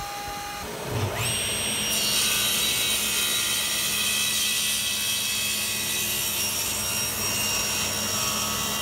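Table saw ripping a wooden board, with a dust-collection vacuum drawing through the hose on the blade guard. A steady cutting noise with high whistling tones sets in about two seconds in.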